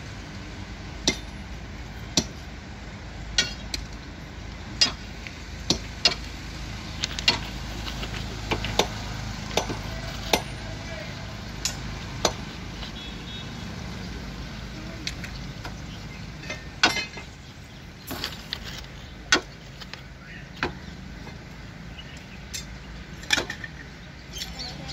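Steel bar knocking and scraping at the mould of a fresh thermite rail weld, breaking it away: sharp metallic knocks at irregular intervals, roughly once a second, over a low steady rumble.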